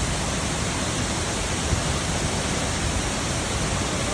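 Large waterfall: a steady, loud rush of falling water.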